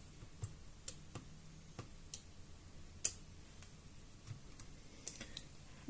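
Scattered light clicks and taps, irregularly spaced, from small tools and parts being handled on an opened laptop during heatsink removal.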